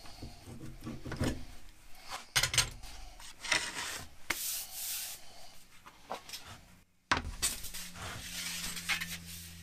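A C-clamp being unscrewed and wooden form blocks knocked and lifted apart, then a thin sheet-metal fuel tank end scraping and rubbing on the wood as it is slid out and handled. There are several sharp knocks in the first few seconds, then mostly scraping and rubbing.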